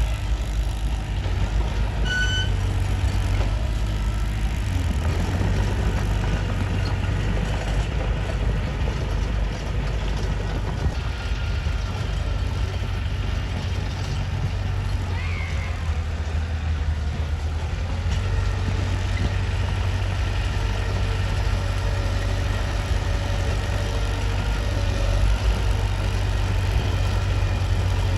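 Mitsubishi bulldozer's diesel engine running steadily with a low drone.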